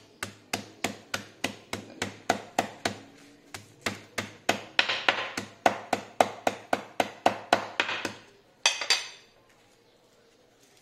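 A kitchen knife chopping spring onions on a wooden cutting board: a steady run of sharp chops, about three to four a second, then a brief scrape across the board near the end.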